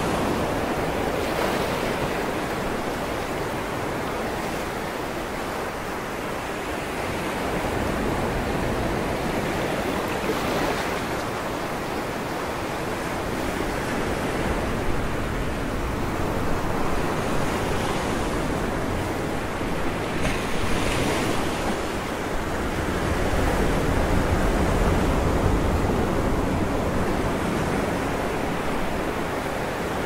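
Sea surf breaking and washing against a rocky shore: a steady rush of foaming water that swells and eases every several seconds as each wave hits the rocks.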